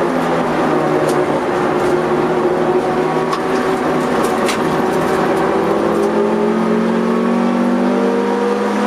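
Honda CR-X EE8's 1.6-litre VTEC four-cylinder engine pulling hard at high revs, heard from inside the cabin. Its pitch drops at the start, holds through the corner, then climbs again over the last few seconds as the car accelerates.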